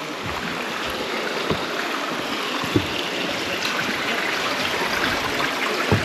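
Shallow mountain stream running over stones: a steady rush of water, with a soft knock a little under three seconds in.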